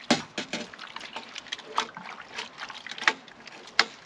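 Spoon stirring Pinot Noir grape juice in a stainless steel fermenter: liquid swishing with irregular sharp clicks and knocks throughout.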